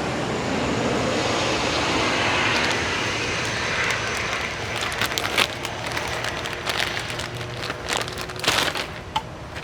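A steady rushing background noise that slowly fades, with sharp clicks and light rattles of small parts being handled from about halfway through.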